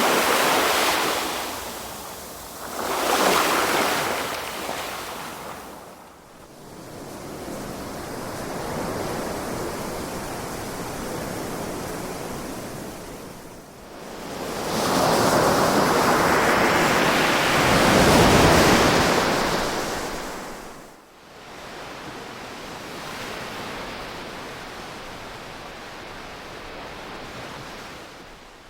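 Ocean waves breaking and washing ashore in surges that swell and ebb. Two waves come near the start and a gentler swell follows, then the biggest, longest wave breaks about fifteen to twenty seconds in before a quieter wash.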